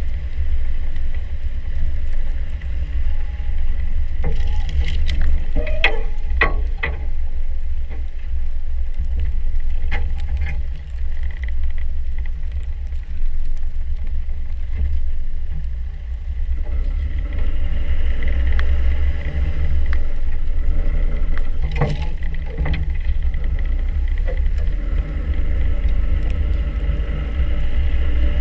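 Land Rover Defender 90 driving a snowy off-road trail, its engine and drivetrain making a steady low rumble. A few sharp knocks come about five to seven seconds in, and another around twenty-two seconds.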